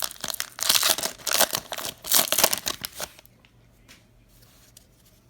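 Foil wrapper of a basketball card fat pack being torn open and crinkled, a burst of crackling for about three seconds that then stops, leaving faint card handling.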